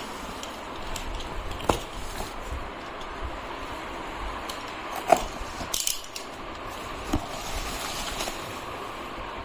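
Handling noises from unpacking plants: scattered sharp clicks and a short rustle over a steady background hiss.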